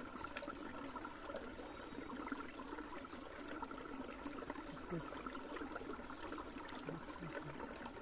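Small forest stream trickling steadily over rocks.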